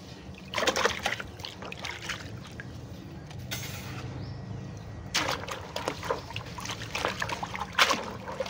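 Hands swishing bunches of wild grapes through water in a bucket: splashing and sloshing in two spells, a short one about half a second in and a longer, stronger one from about five seconds in.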